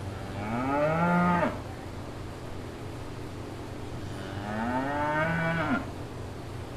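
A cow mooing twice, a few seconds apart: each call rises in pitch and bends down as it breaks off, over a steady low hum.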